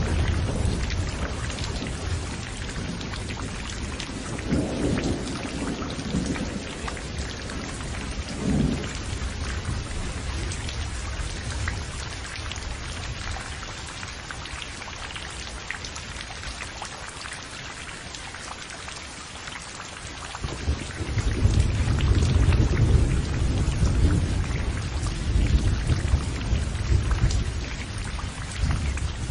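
Heavy rain falling steadily in a thunderstorm, with rolls of thunder: short rumbles near the start and twice more in the first third, then a long, loud rolling rumble from about two-thirds of the way through to the end.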